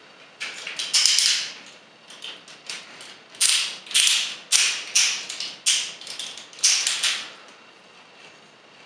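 Plastic joints of a Robots in Disguise Megatron transforming toy clicking as its legs are rotated and opened out into dragon heads. Bursts of sharp ratchet-like clicks, about a dozen of them, stopping about seven seconds in.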